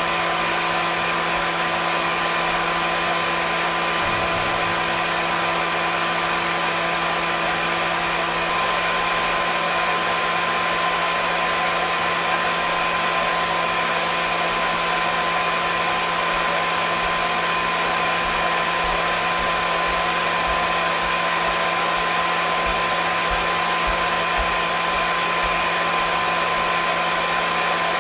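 Hair dryer running steadily: an even airy rush from the fan with a constant motor hum and whine, unchanging throughout.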